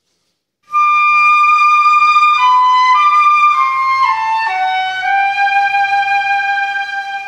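Music starts after a moment of silence: a slow melody of long held notes on a single wind-like instrument, stepping mostly downward.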